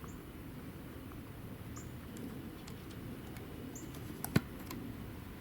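Quiet outdoor background with a steady low rumble and occasional short high bird chirps. A few light clicks are heard, with one sharp click or tap about four seconds in.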